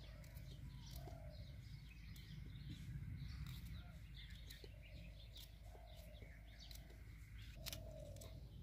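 Faint bird calls: a low note repeated several times, with higher chirps among them.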